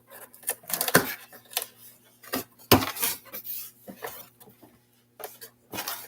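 Cardboard box being opened and its packaging handled: a string of irregular knocks and clatter with rustling and scraping between them, the sharpest knocks about a second and just under three seconds in.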